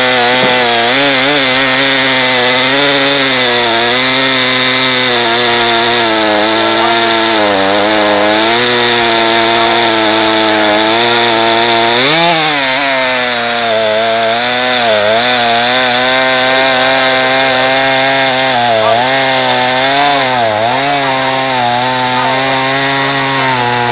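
Two-stroke chainsaw running at full throttle while cutting through a large log. The engine note holds steady, dipping in pitch briefly several times as the chain bites under load.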